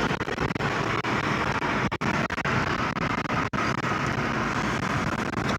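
Steady road and engine noise heard from inside a car cruising on a highway.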